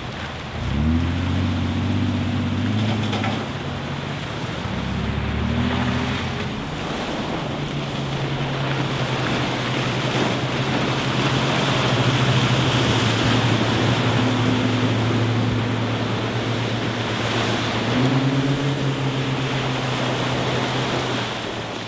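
Outboard motor of a rigid inflatable boat, its pitch rising and falling over the first few seconds, then running steadily under way, rising again near the end, over the wash of surf and water.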